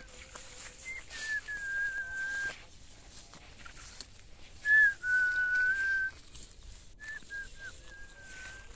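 Person whistling three long, slightly wavering notes, each sliding down a little at its start and held for about a second or more; the one just before the middle is the loudest.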